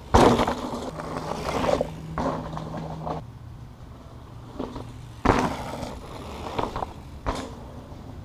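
Mountain bike riding past close by on a dirt trail: a heavy thud just after the start as it lands, tyres rolling and crunching over dirt and dry leaves for a few seconds, then a second thud about five seconds in and a couple of lighter knocks as it passes again.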